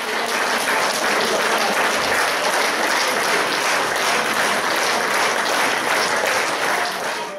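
Audience applauding: dense, steady clapping that cuts off abruptly at the end.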